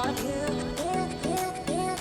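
Background music: a sung melody with sliding notes over a steady beat.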